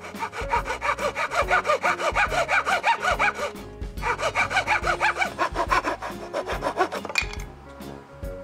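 A framed hand saw cutting through a pine board in quick, even back-and-forth strokes, with a short break a little past halfway before the strokes start again.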